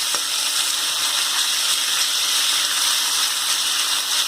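Chopped thoothuvalai (Solanum trilobatum) leaves sizzling steadily as they are sautéed in hot sesame oil in a kadai.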